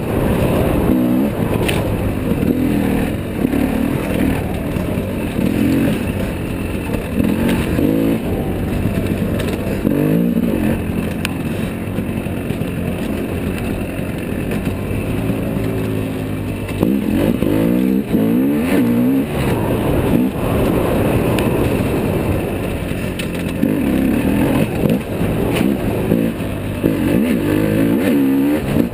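Dirt bike engine running under load, its pitch rising and falling again and again as the throttle opens and closes through gear changes on rough trail.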